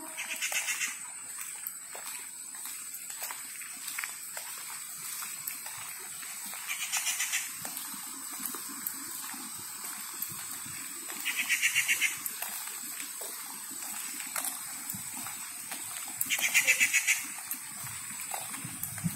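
An animal's short, rapid trilling call, repeated four times about five seconds apart, over a steady high-pitched hum.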